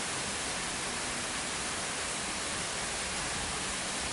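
Steady rain falling: an even, unbroken hiss, with no bird calls or other sounds standing out.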